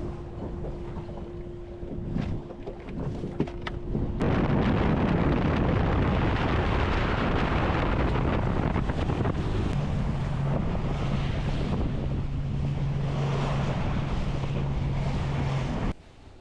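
Boat running over open water, with wind buffeting the microphone and a steady engine hum under it. The rush of wind and water jumps much louder about four seconds in, then cuts off abruptly just before the end.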